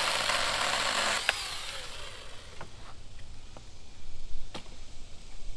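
Cordless mini chainsaw running as it cuts through brush, its motor cutting off about a second in and winding down with a falling whine. After that come a few sharp snaps and knocks of sticks being handled.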